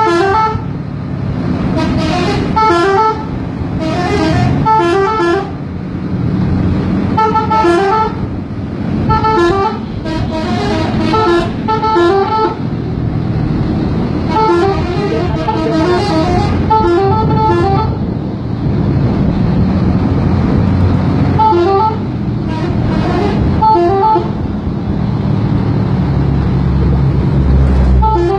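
Telolet multi-tone musical horns playing short stepped melodies in repeated bursts, traded between a motorbike and a bus, over a bus engine running that grows louder near the end.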